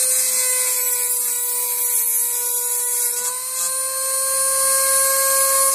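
Small rotary tool with an abrasive cut-off wheel running with a steady high whine. About three seconds in, a grinding hiss comes in as the wheel cuts a piece off an arrow shaft, and the motor's pitch dips briefly under the load, then rises again.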